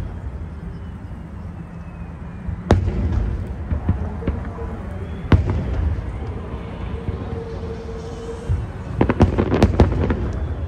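Aerial firework shells bursting: a loud boom about three seconds in, another about five seconds in, then a rapid string of cracks near the end, over a continuous low rumble.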